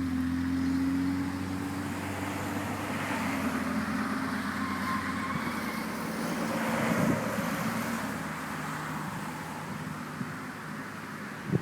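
A steady low motor hum that holds its pitch and slowly fades over the last few seconds.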